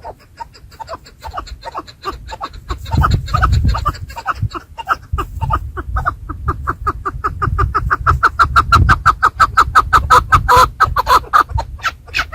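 Chukar partridge calling: a long run of rapid clucking notes that grows louder and quicker, reaching about seven or eight a second, with a low rumble underneath.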